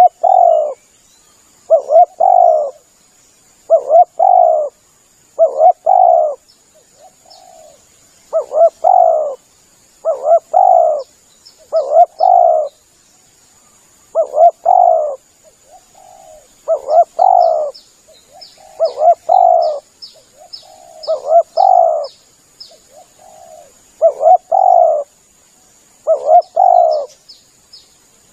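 Spotted dove (tekukur) cooing, one short phrase of several low notes repeated about every two seconds; a lure call used to draw in wild doves.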